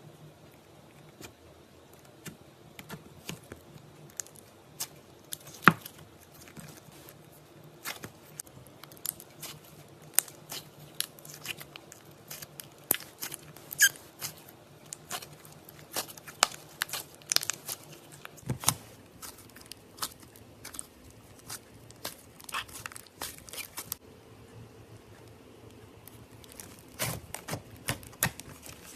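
Slime being squeezed and poked by hand, making irregular wet clicks and pops as air pockets burst, busiest in the middle and quieter for a few seconds near the end.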